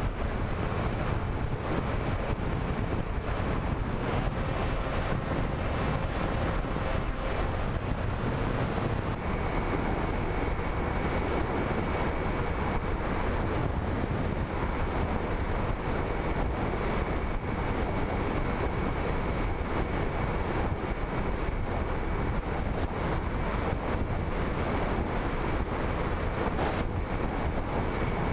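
Steady rush of wind over the onboard camera's microphone on an RC flying wing in flight, with a faint steady whine of its motor and propeller underneath.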